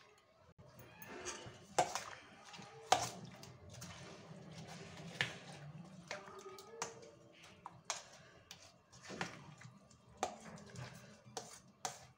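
Spoon stirring thick yogurt and chopped fruit in a stainless steel bowl: scattered knocks and scrapes of the spoon against the bowl, with wet stirring sounds between them.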